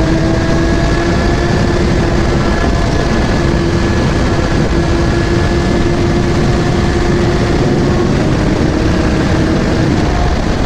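Kawasaki motorcycle engine running at a steady speed, its pitch holding level, under a constant rush of wind and road noise.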